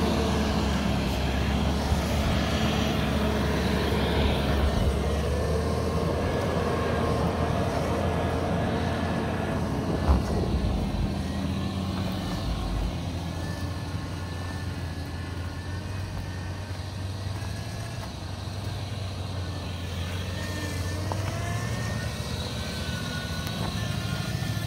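Range Rover L322's V8 engine running at low speed as the SUV crawls along a rough dirt trail, a steady low hum throughout. A single sharp knock is heard about ten seconds in.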